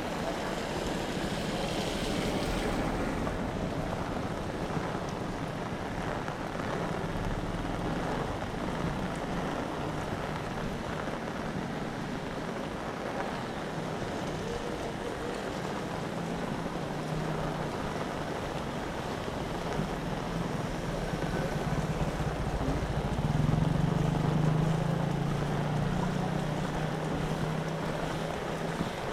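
Heavy rain and gusting wind buffeting the microphone, a steady rushing noise. A low engine hum runs underneath and grows louder about three-quarters of the way through, like a vehicle passing.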